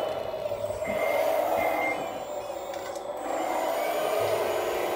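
Radio-controlled scale Komatsu WA470 wheel loader's motors and gears whining steadily as it reverses, with two short high beeps about a second in.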